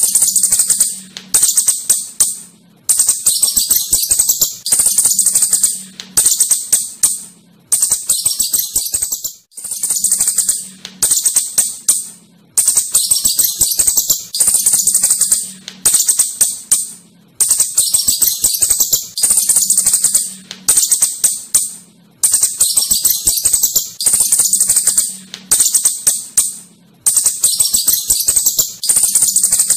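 Asian house shrew chittering: repeated bursts of shrill, high-pitched twittering and clicking, each about a second long, with quick falling chirps and brief gaps between.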